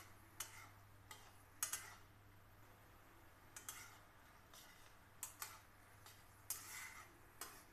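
Metal spatula scraping and tapping against a metal kadai while vermicelli is stirred in a little simmering liquid: about a dozen short, irregular scrapes and knocks.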